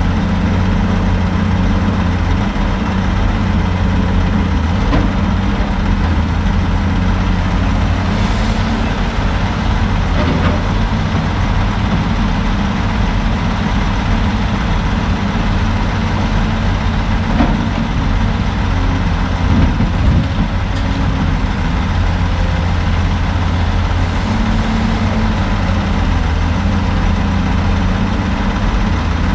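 Heavy diesel engines running steadily: a CAT log loader working its grapple beside an idling Kenworth T800 logging truck. A few faint knocks come through as logs are handled, the loudest about two-thirds of the way through.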